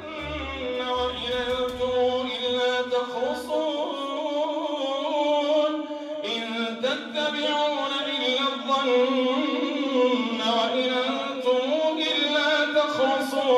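An imam chanting Quran recitation in Arabic through a microphone, a single male voice holding long melodic notes; the line breaks and a new phrase begins about six seconds in. Low theme music fades out under the voice in the first few seconds.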